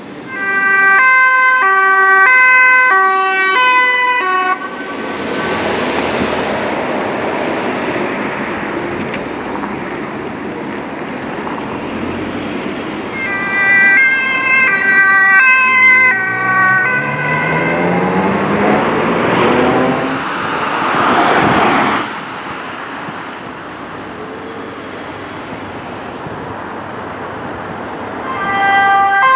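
Dutch emergency vehicles' two-tone sirens, alternating high and low notes: an ambulance's siren near the start, a police motorcycle's siren around the middle followed by its engine revving up as it accelerates away, and another ambulance siren starting near the end. Road traffic runs between the sirens.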